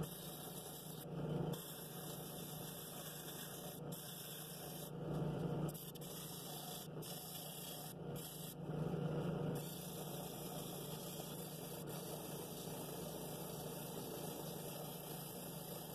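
Drill press running a flex-pad sanding disc with a steady motor hum, as the outside of a cherry bowl is pressed against it to sand the stacked rings level with coarse 60-grit paper. The sanding grows louder in short passes about a second in, around five seconds and around nine seconds in.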